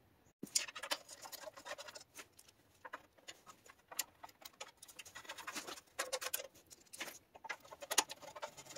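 Irregular light clicks, taps and scrapes of a plastic recoil starter housing being handled and fitted onto a Honda GX160 engine, with a bolt being started into it with a screwdriver near the end.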